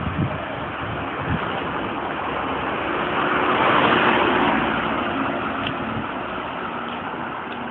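Wind rushing over the microphone and road noise while filming from a moving vehicle, swelling loudest about four seconds in.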